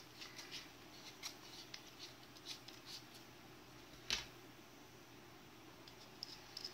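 Faint small clicks and scrapes of a fountain pen being handled while its screw-in Schmidt nib unit is unscrewed from the grip section, with one sharper click about four seconds in.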